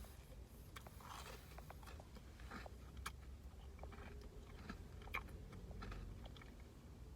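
A person chewing food close to the microphone, faint, with small mouth clicks and smacks scattered throughout.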